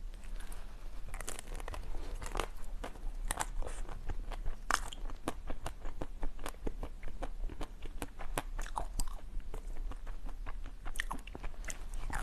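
Ice being bitten and chewed close to the microphone: a dense, irregular run of sharp cracks and crunches.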